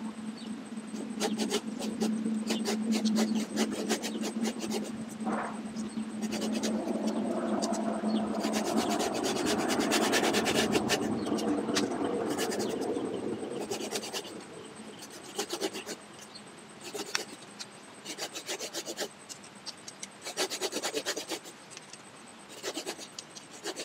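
Hand pruning saw cutting through a live lychee branch, a run of back-and-forth rasping strokes on the wood. The strokes come thick and steady for the first dozen seconds, then in short spaced bursts near the end. A low steady hum sits under the first few seconds.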